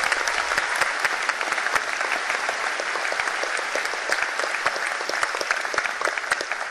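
Large crowd applauding: dense, steady clapping that eases off slightly toward the end.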